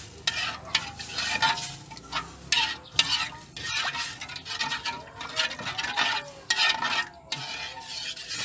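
Stirring a wok of water and ground spice paste: repeated scraping swishes against the pan, several a second, some louder than others.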